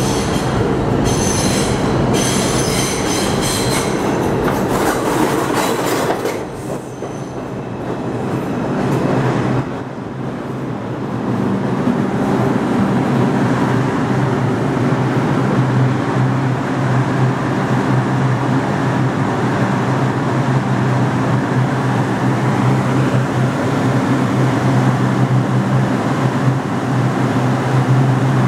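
R142 New York City Subway train entering a station on a curve, its wheels squealing on the curved rail for the first six seconds or so. After a brief dip, a steady low hum from the train takes over from about ten seconds in as it runs alongside the platform.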